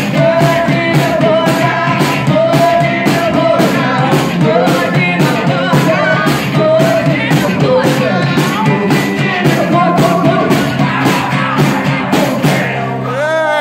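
Live rock and roll band playing: distorted electric guitar, a standing drummer's bass drum and snare on a fast steady beat, and a man singing. The beat stops near the end as the song closes.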